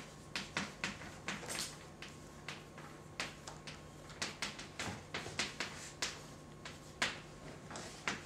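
Chalk writing on a blackboard: a quick, irregular run of short taps and scrapes as letters are written, over a faint steady low hum.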